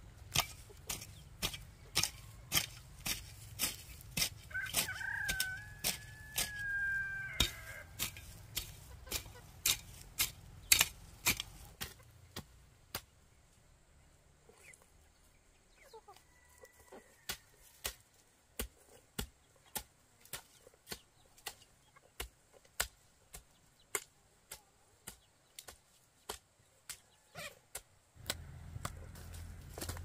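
A hoe chopping into dry soil about twice a second, a sharp strike each time. A rooster crows once a few seconds in, and a chicken calls faintly later.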